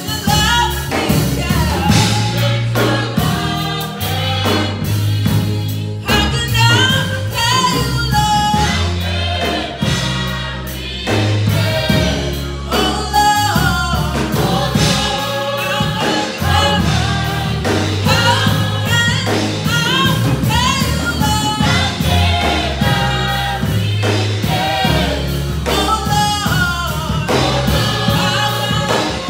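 Youth gospel choir singing behind a female lead vocalist, over instrumental accompaniment with a steady low bass line.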